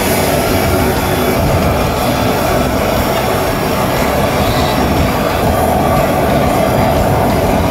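Jet engines running steadily: a loud, even rush with a steady hum through it.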